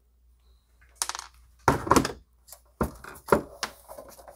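Sheet-metal top cover of a rack-mount tube preamp being worked loose and lifted off the chassis. Metal scrapes and knocks start about a second in, the loudest near the middle, followed by several sharper clacks.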